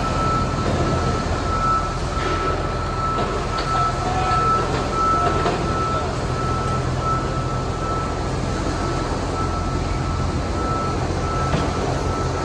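XCMG GR215 motor grader's diesel engine running steadily at work, with a backup alarm beeping over it in a steady repeating pattern.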